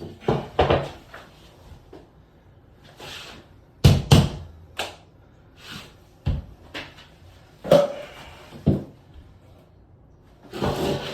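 Irregular knocks and thumps of a drywall board being pushed and knocked into place over dabs of thinset on the studs, about seven in all, with a close pair about four seconds in.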